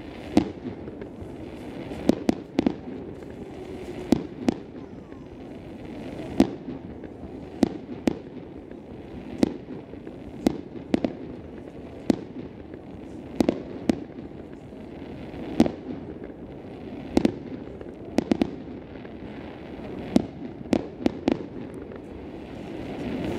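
Aerial fireworks exploding in sharp bangs at irregular intervals, every second or two, sometimes in quick pairs or clusters, over a steady low background noise.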